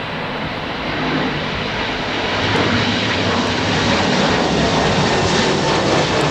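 Aircraft engines running and growing steadily louder as a plane draws nearer.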